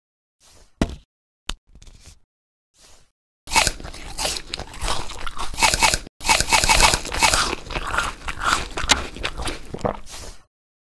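A few scattered clicks, then two long stretches of dense crunching and crackling, split by a short break about six seconds in.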